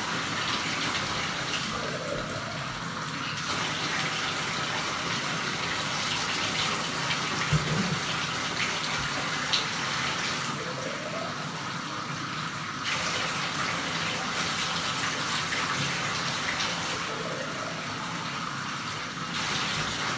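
Bathtub faucet running steadily into the tub. A plastic cup is filled under the stream three times, each fill giving a short rising tone, as water is scooped to rinse a dog.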